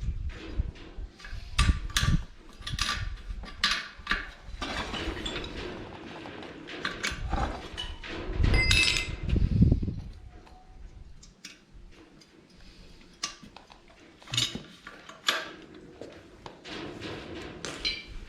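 Hand tools and metal engine parts clinking and knocking in an irregular series of sharp strikes, some with a brief metallic ring, mixed with handling and rustling; the brushcutter's two-stroke engine is not running.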